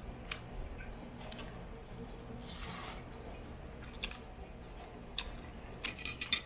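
Eating with a metal fork on a plate: a handful of light clicks spread through, a short scrape about two and a half seconds in, and a quick run of clicks near the end.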